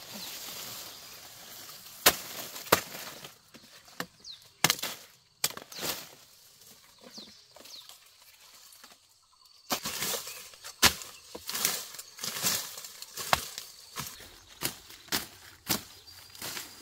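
Sugarcane being cut by hand: irregular sharp chops and cracks from the stalks, with dry cane leaves rustling in between.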